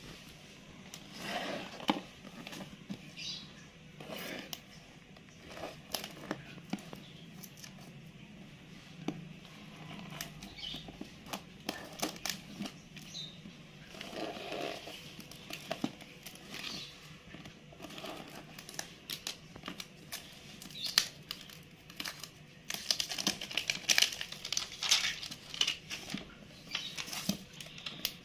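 Scissors snipping and plastic shrink-wrap crinkling as the cellophane on a smartphone box is cut, in irregular clicks and rustles. Near the end the crinkling and tearing grow denser as the wrap is pulled off the box.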